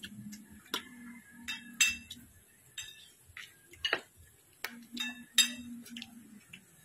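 Metal spoons clinking and scraping on plates during a meal: scattered sharp clinks, some ringing briefly, the loudest about two seconds and five and a half seconds in.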